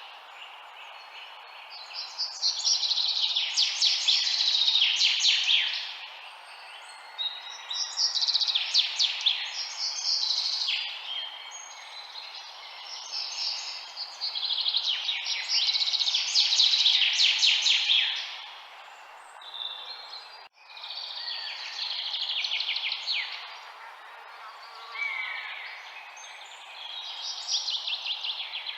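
Songbirds singing in repeated bursts of rapid chirps and trills, a new burst every five or six seconds, over a steady background hiss.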